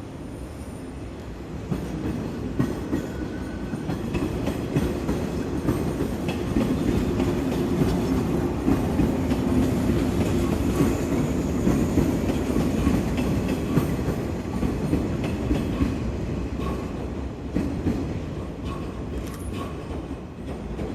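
JR West 115 series electric multiple unit passing on the track, its wheels clattering over the rail joints. The rumble builds over the first few seconds, is loudest in the middle and then slowly fades.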